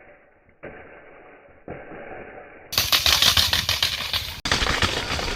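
Bare aluminium rear rim of a mountain bike, ridden with no tyre, clattering over the ground: a loud, rapid metallic rattle from about three seconds in, after a quieter muffled stretch.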